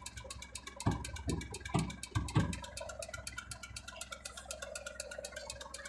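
Vehicle engine idling steadily, heard from inside the cab, with five dull thumps in quick succession about a second in.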